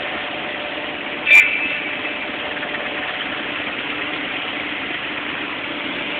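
Hydraulic demolition excavators' diesel engines running steadily, with one sharp metallic clang about a second in as the thick steel shell of a sphere is struck, ringing briefly.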